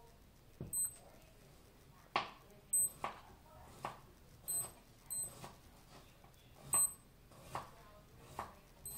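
Digital wristwatch beeping as its button is pressed: five short, high-pitched beeps at uneven intervals, with short sharp clicks and knocks between them.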